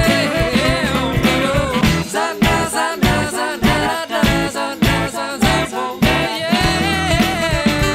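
Background music with singing over a steady beat; the bass drops out for a few seconds midway and returns near the end.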